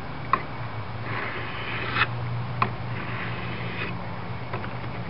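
Mora knife blade drawn across a wet sharpening stone: two long scraping strokes, each about a second, with a light click of steel on stone at the ends. A steady low hum runs underneath.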